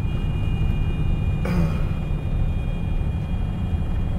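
Freightliner Cascadia semi truck engine running steadily at about 1500 RPM in eighth gear, heard from inside the cab with road noise. The loaded truck is rolling downhill off the brakes. A faint steady high whine sits over the rumble, and there is a brief hiss about a second and a half in.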